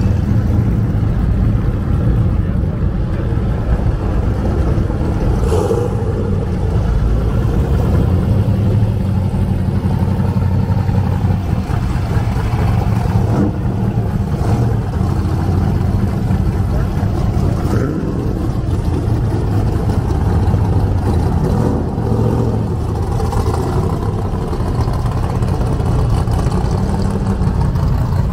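Engines and exhausts of classic muscle cars and hot rods driving slowly past one after another, a steady low engine note with brief swells as individual cars go by.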